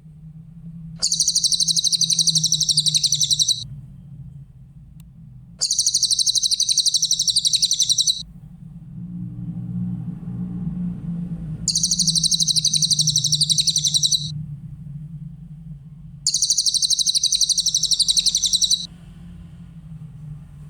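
Cililin bird singing: four high-pitched, fast trills, each about two and a half seconds long, spaced a couple of seconds apart. A steady low hum runs underneath.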